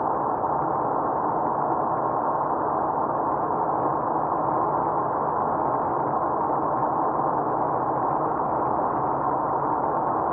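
Steady road and engine noise inside a car cruising at highway speed: an even, dull rush of tyres and engine with no distinct events.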